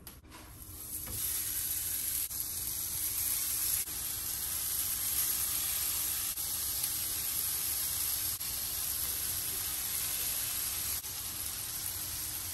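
Raw ground-beef burger patties sizzling on a hot griddle pan. The sizzle comes up about a second in and then holds steady.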